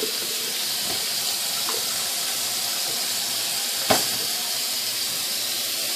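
Steady rushing hiss of water running from a tap, with a single sharp click about four seconds in.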